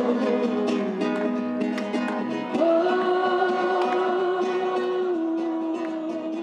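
A crowd singing a slow song together in long held notes, accompanied by guitar.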